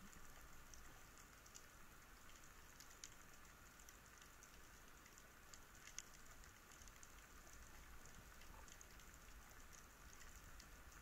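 Faint underwater crackling: a steady hiss with many scattered small clicks and pops, a few sharper than the rest, picked up underwater beside a rocky, weed-covered seabed while the breath-holding diver stays motionless.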